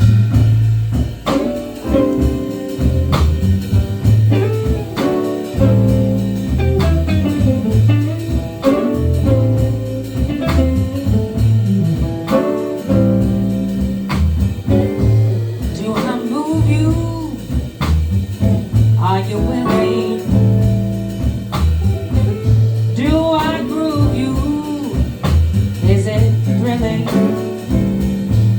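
A live band plays a soul-blues groove without vocals: a repeating bass line, a drum kit keeping time, and lead lines that bend up and down in pitch, most often in the second half.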